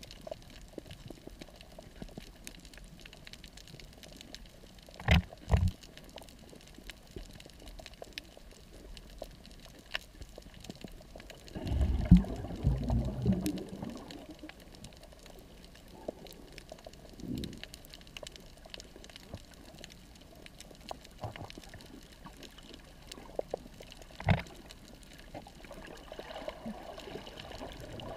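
Underwater water noise picked up by a submerged camera: a low, steady wash with a few dull knocks, two close together about five seconds in, and a louder gurgling rush of bubbles about twelve seconds in.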